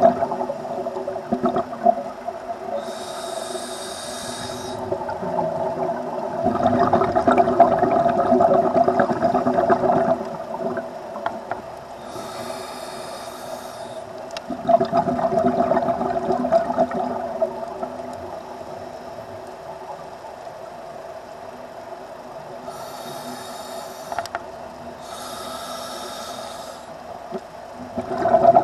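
Scuba diver breathing through a regulator underwater: a high hiss with each inhalation and a louder rush of bubbling with each exhalation, several breaths in turn over a steady low hum.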